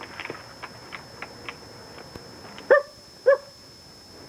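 A dog giving two short, high-pitched barks about half a second apart, after a few faint clicks.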